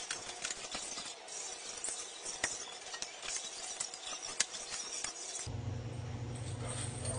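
Scattered light clicks and scrapes of hand work on motorcycle front-fork parts. About five and a half seconds in, a steady low hum starts abruptly.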